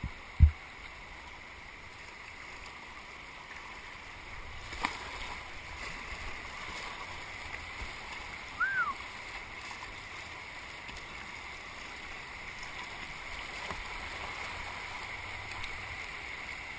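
Rushing of the Patapsco River running high after a flood, heard from a kayak on the water, growing a little louder a few seconds in. A sharp thump comes about half a second in, and a brief arched high note about halfway through.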